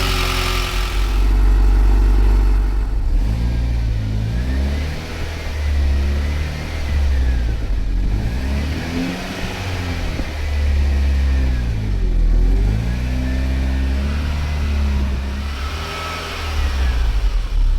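Mitsubishi Lancer Evolution X's freshly rebuilt 4B11T turbocharged four-cylinder engine running just after its first start, its revs rising and falling again and again.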